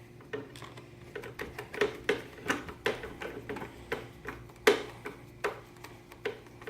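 Small irregular clicks and ticks from hand work on a motorcycle's aftermarket brake lever and its pivot screw, about two or three a second, with one louder click near the five-second mark. A faint steady hum runs underneath.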